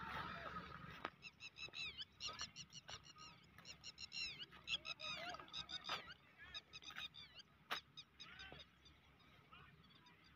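Birds chirping: many short, high chirps in quick runs, with a few sharp clicks among them.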